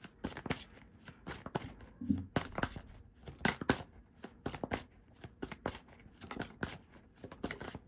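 A deck of oracle cards being shuffled by hand: a quick, irregular run of light card flicks and taps.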